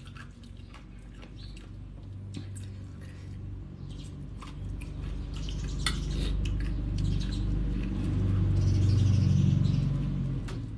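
Close-up chewing of spicy green papaya salad, mouth closed, with a few light clicks of a fork against the metal bowl. A low sound swells to its loudest near the end.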